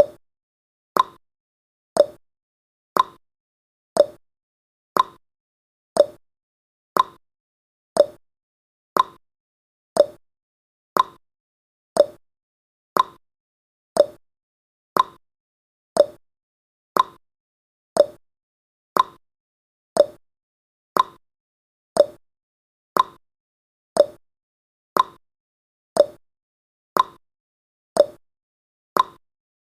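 Clock-style ticking sound effect of a countdown timer, one tick each second, alternating between a higher and a lower tick like a tick-tock.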